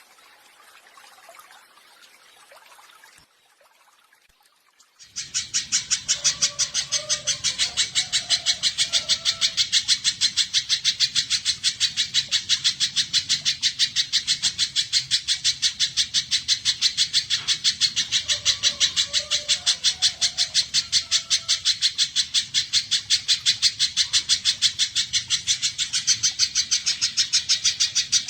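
Spiderhunter (pijantung) calling: a fast, steady string of sharp high chips, several a second, that starts abruptly about five seconds in and keeps going without a break.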